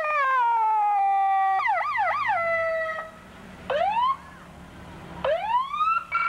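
Emergency vehicle siren being sounded in short bursts: a wail winding down in pitch, a quick rapid warble, then two short rising whoops, with a brief steady tone near the end.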